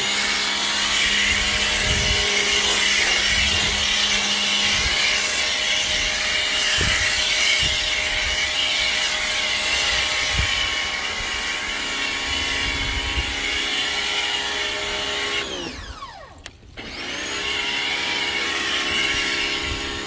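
Ryobi 1600 PSI electric pressure washer running with a steady motor whine over the hiss of spraying soap foam through its soap cup attachment. About three-quarters of the way in the motor winds down and stops for about a second, then starts up again and runs on.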